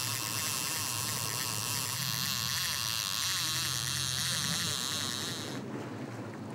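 Sport-fishing boat at sea: a low steady engine hum under a strong hiss of wind and water, with a wavering high whine over it. About five and a half seconds in, the hiss and whine drop away abruptly, leaving quieter wind and water.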